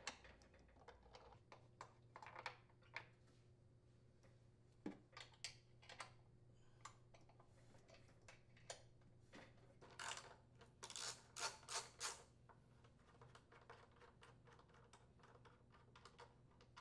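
Faint, scattered clicks and taps of a 3/8-inch socket on the blower housing mounting bolts of a Briggs & Stratton riding mower engine, as the bolts are unthreaded. The clicks come closer together and louder about ten to twelve seconds in.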